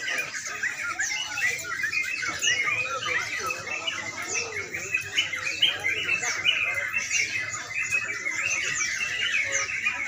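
Many caged crucukan songbirds singing at once in a contest line-up, a dense, unbroken chorus of rapid chirps and trills. The birds are in full ropel, the fast continuous song that contests reward.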